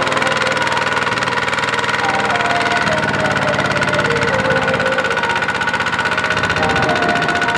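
Kubota RT140 single-cylinder diesel on a two-wheel walking tractor running steadily under load as it hauls a trailer of rice sacks through soft field ground, with a rapid, even putter.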